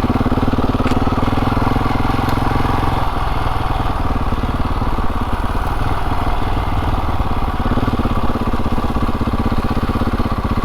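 Motorcycle engine running steadily at low speed as the bike is ridden slowly, with a slight change in engine note about three seconds in.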